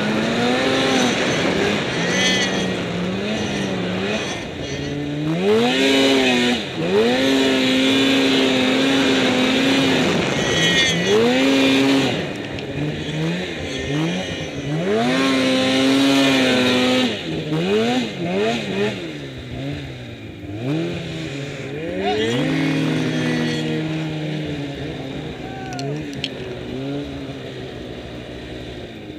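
Snowmobile engine heard from on board, revving up and falling back again and again as it pushes through deep powder snow. Over the last several seconds it eases off and runs lower and quieter.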